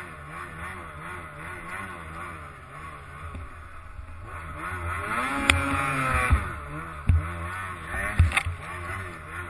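Snowmobile engine running, its pitch wavering. About five seconds in it revs up and falls back again, and a few sharp knocks come between then and near the end.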